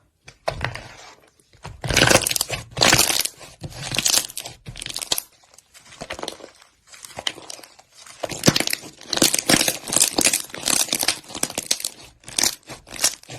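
Slime being pressed and squeezed by hand, a string of irregular short noisy squishes and crackles, loudest about two seconds in and again in a busy stretch past the middle.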